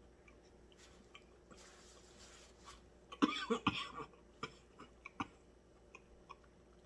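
Mouth sounds of someone eating spicy food: a soft breathy exhale, then about three seconds in a short, loud, cough-like vocal outburst, followed by a few sharp lip smacks and clicks.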